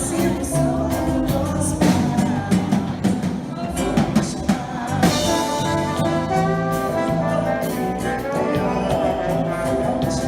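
Instrumental band music led by brass, trumpet and trombone, over a steady beat.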